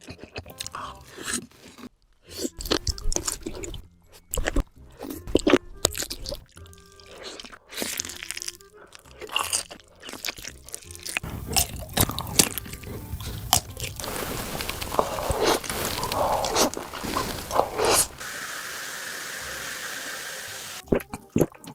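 Close-miked eating of sausages: casings snapping crisply under the teeth in many separate bites, then wet chewing. A steady hiss comes in for the last few seconds.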